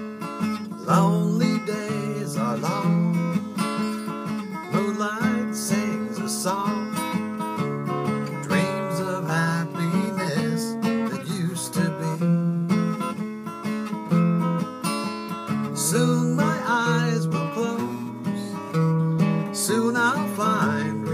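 Steel-string acoustic guitar strummed in a steady rhythm, with a man singing over it in separate phrases.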